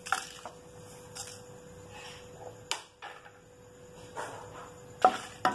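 Dried red chillies landing and shifting in a dry non-stick pan: a few light clicks and knocks, with one sharp click about halfway through and a louder knock near the end, over a faint steady hum.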